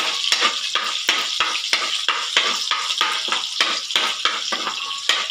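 Metal spoon stirring and scraping against a metal frying pan, about three strokes a second, over the steady sizzle of pork and garlic frying in hot oil.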